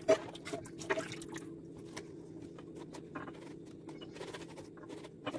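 Thin sheets of dry roqaq pastry being handled and pressed flat on a metal baking tray: a few soft clicks and taps, the sharpest right at the start and about a second in, over a steady low hum.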